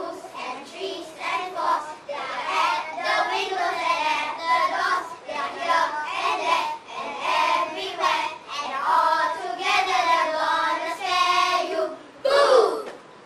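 A group of young schoolchildren reciting a verse together in a sing-song chant, in phrases with short pauses. Near the end comes a loud, short cry that rises in pitch, and then the voices stop.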